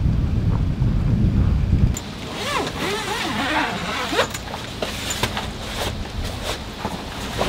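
Wind rumbling on the microphone for about two seconds, cutting off suddenly. Then come rustling and scattered clicks, knocks and short squeaks while a canvas tent is being pitched.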